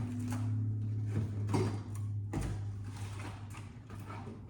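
Light handling noises, a few scattered clicks and knocks of objects being moved and picked up, over a steady low hum.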